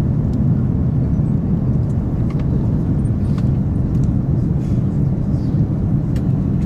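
Steady low rumble inside the cabin of a JR L0 series maglev running levitated through a tunnel at about 330 km/h, slowing gently.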